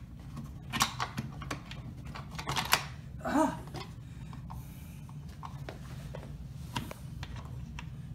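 Scattered light clicks and knocks of hands working the metal pins loose from the joints of a knock-apart wooden throne frame.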